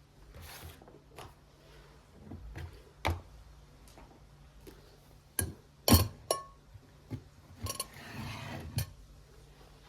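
Household items being handled and set down: a series of separate knocks and clinks, the loudest about six seconds in, a couple with a short glassy ring, and a brief rustle near the end.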